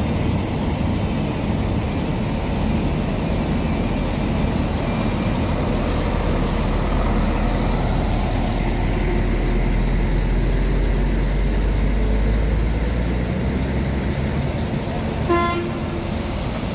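Bus diesel engine running with a steady low rumble, with several short high hisses in the first half. About fifteen seconds in, one short horn toot.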